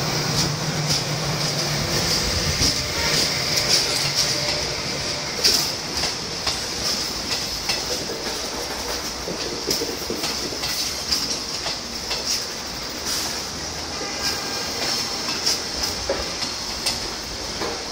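Train rolling past over the level crossing, its wheels clacking irregularly on the rails over a steady hiss.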